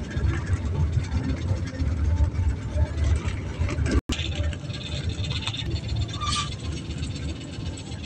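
Riding along in a moving road vehicle: a steady low engine and road rumble with light rattling, heard from on board. The sound drops out for an instant about four seconds in.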